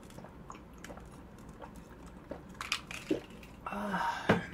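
Close-miked mouth sounds as she drinks iced water and eats: faint wet clicks and swallows, a few louder clicks, then a short breathy sound and a sharp click near the end.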